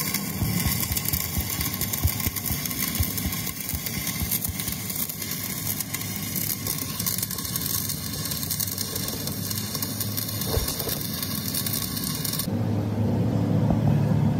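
Stick (arc) welding rod crackling and sizzling as it lays a bead over a crack in a truck's rear axle housing. The arc stops about twelve seconds in, and a steady low hum takes over.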